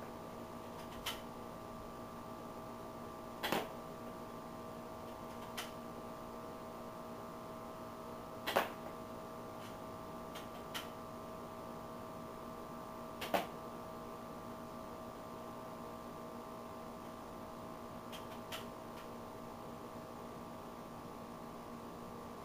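Airsoft rifle shots and 0.2 g BBs striking a paper-and-box target, about eight sharp clicks at uneven intervals, some doubled, over the steady hum of an air conditioner.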